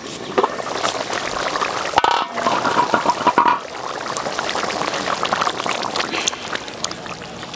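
Climbing perch and orange curry bubbling hard in an aluminium kadai, a dense crackle of bursting bubbles, with a sharp metal knock about two seconds in as the lid comes off.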